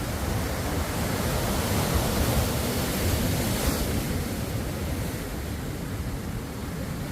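Ocean surf: waves washing on shore as a steady hiss, swelling a little louder partway through and then easing.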